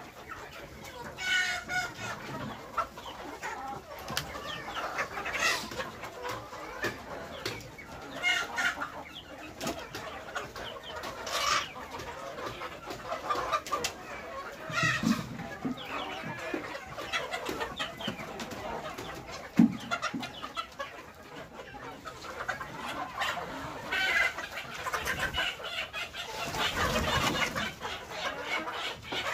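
A flock of desi laying hens clucking and calling over one another, with short sharp calls standing out every few seconds. A longer, louder noisy stretch comes near the end.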